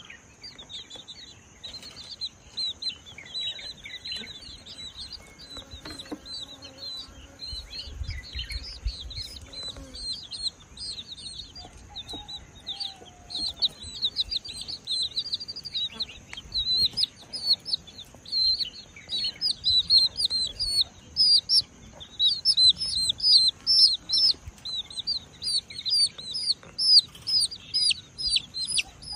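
Baby chicks peeping: a rapid stream of short, high cheeps that grows busier and louder in the second half.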